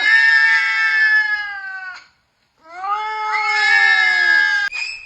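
A cat yowling in two long, drawn-out calls with a short break between them: the first sinks slowly in pitch, the second rises and then falls. Near the end a quick series of short, high-pitched pulses starts, about two a second.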